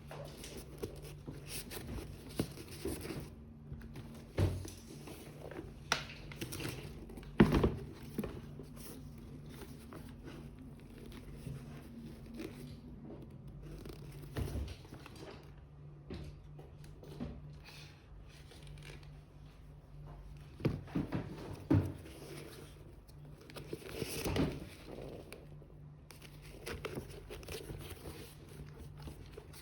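Intermittent handling noises from unboxing sneakers: scattered knocks and taps with some crinkling of paper packaging, over a steady low hum.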